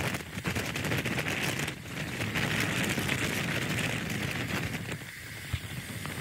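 Fast runoff rushing through a breach in a beach sand berm, with strong wind buffeting the microphone in a dense crackle that eases briefly a couple of times.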